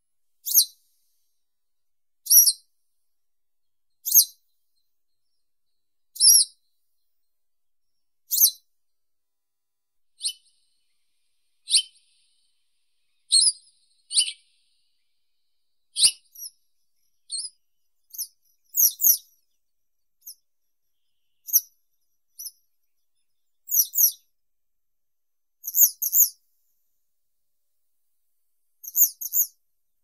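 Western yellow wagtail (Motacilla flava) giving short, high-pitched chirps, one every second or two, sometimes two in quick succession.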